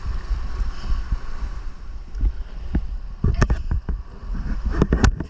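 Whitewater rushing around an inflatable kayak running a rapid, with a heavy rumble on the microphone and a few sharp knocks and splashes of water and paddle against the boat, a cluster about three and a half seconds in and another near the end.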